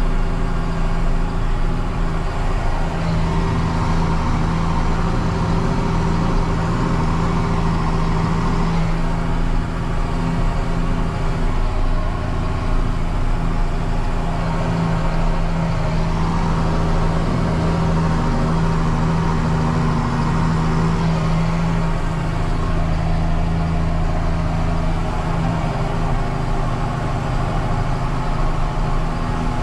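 John Deere 6930 tractor's six-cylinder diesel engine running steadily while pulling a cultivator, its note shifting slightly a few times.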